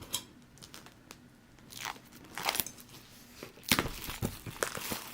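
A product box being opened by hand: scattered scratches and clicks, then busier crinkling and tearing of packaging from about two seconds in.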